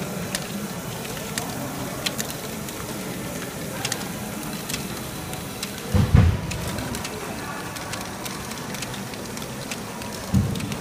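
LEGO Great Ball Contraption modules running: small plastic balls clicking and rattling through the mechanisms over a steady background din of motors. Two dull low thumps stand out, one about six seconds in and one near the end.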